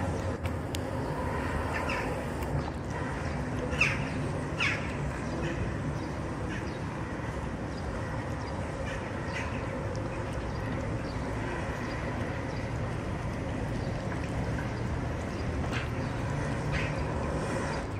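Steady outdoor rumble with a few short animal calls, the clearest about four seconds in.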